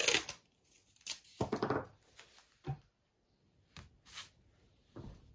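Cotton quilt fabric rustling and brushing under hands as a strip is laid and smoothed across it, in several short bursts.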